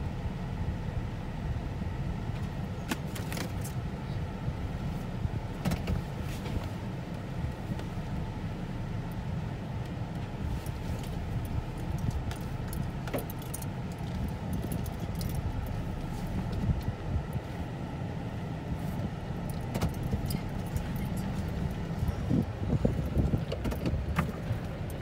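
Car running, a steady low rumble heard from inside the cabin, with scattered light clicks and rattles. The clicks come more often near the end.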